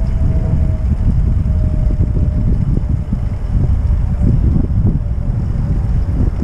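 Wind buffeting the microphone of a camera on a moving recumbent trike, a heavy low rumble that gusts unevenly, mixed with rolling noise. A faint thin whine slowly falls in pitch and fades out about five seconds in.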